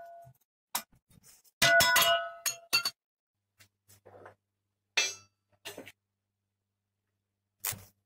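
Pieces of cut steel clanking and ringing as they are handled and set down on a steel bench, the loudest clang about two seconds in, followed by a few lighter knocks. Near the end comes a short crackle from a stick-welding arc striking a tack weld.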